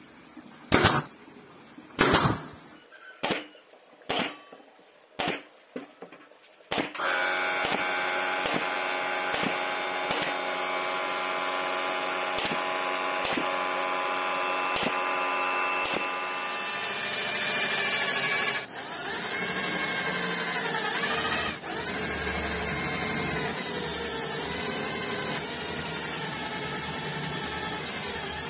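Pneumatic brad nailer shooting brads into a plywood fence strip, about one shot a second: seven separate shots at first. About seven seconds in a steady motor hum starts and keeps running, with more nail shots through it.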